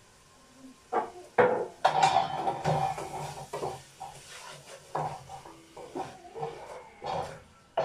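Wooden spoon stirring in a stainless steel cooking pot: two sharp knocks about a second in, then a run of scraping and clattering with further knocks.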